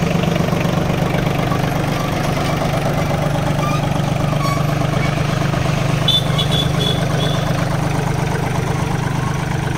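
Swaraj Target 630 mini tractor's 29 hp Yanmar diesel engine idling steadily, just after being started.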